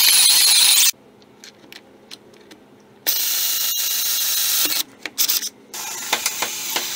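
Cordless drill boring into the metal of a vehicle frame, the bit cutting and throwing shavings. It stops abruptly about a second in, starts again about three seconds in, and then runs in short stop-and-start bursts.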